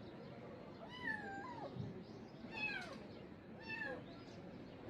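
Kittens meowing: three high-pitched meows about a second apart, each gliding down in pitch.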